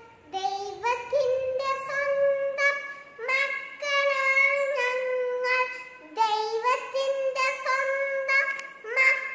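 A young girl singing solo and unaccompanied, holding notes in phrases of about three seconds with short breaks between them.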